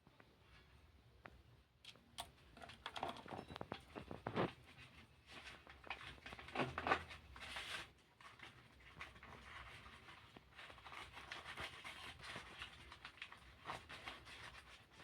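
Faint, irregular scratching, tapping and rustling, with a louder run of clicks about halfway through.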